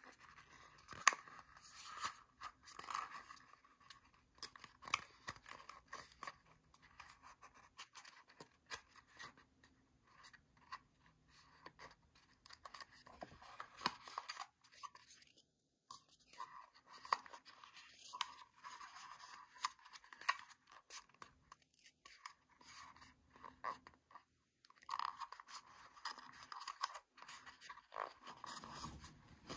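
Stiff printed paper crinkling and creasing in irregular small crackles and scrapes as a cut-out paper dice is folded into shape by hand.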